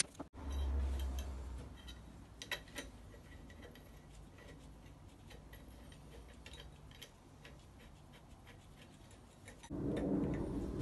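Irregular light metallic clicks and taps of hand tools and a spanner working on a cast-iron engine block. A brief low rumble sounds near the start, and a louder steady noise comes in near the end.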